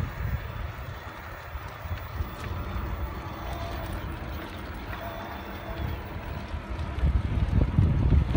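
Wind buffeting the microphone on a moving cargo bike: a gusty low rumble that grows louder about seven seconds in.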